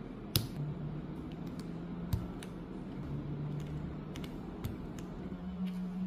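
PBT keycaps being pushed onto the stems of Gateron Pro White 2.0 linear switches on a Monsgeek M1W keyboard, giving a handful of sharp, separate plastic clicks. The loudest click comes about half a second in.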